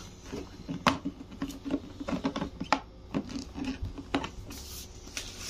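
Irregular light clicks and taps of hard plastic parts being handled and pressed into place on a water purifier's plastic lid, with a few sharper clicks about one, three and four seconds in.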